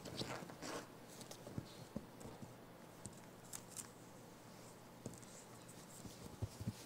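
Faint scuffling and light taps as a baby cinnamon capuchin monkey scrambles and jumps about on a fleece-covered couch, with hands and feet against the mirror glass. There is a short burst of rustling near the start, then scattered soft taps.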